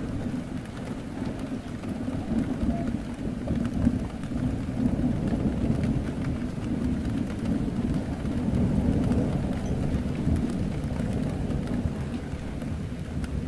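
Steady rain against a window, heard from indoors, with a deep rumble underneath that swells and fades.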